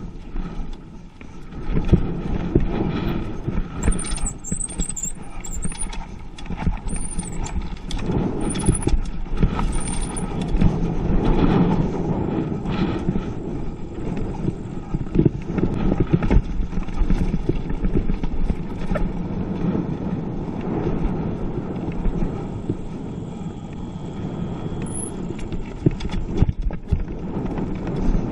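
Mountain bike running down a rough dirt downhill track, heard from a camera mounted on the bike or rider: tyres rolling over dirt and the bike and camera mount rattling with many small knocks. The ride picks up about two seconds in.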